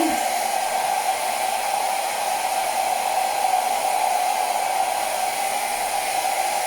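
Hair dryer blowing steadily, drying wet paint on a canvas: a constant rushing hiss with a steady mid-pitched whine.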